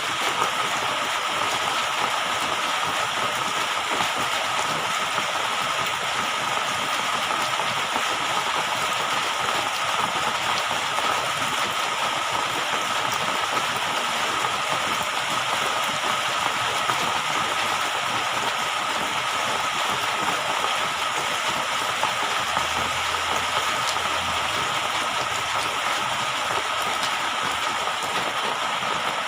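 Steady, unbroken rushing of water, with a thin steady tone running through it.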